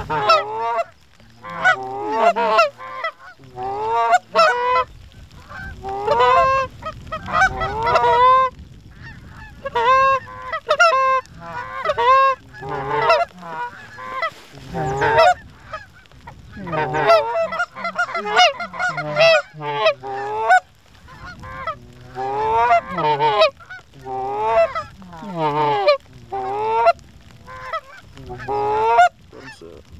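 Goose calls imitating Canada geese: loud, close honks and clucks in quick runs with short gaps, calling to flocks working toward the decoys.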